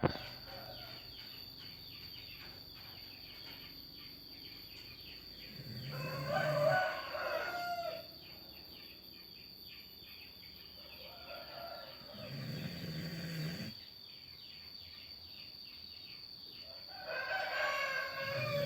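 Snoring: three long snores roughly five to six seconds apart, each lasting about two seconds. The first comes about six seconds in, the next around twelve seconds, and the last near the end.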